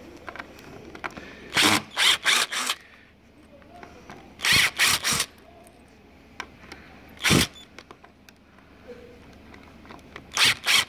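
Phillips screws being driven out of a recliner's metal cable bracket, heard as short, sharp grating bursts in clusters of three or four with pauses between.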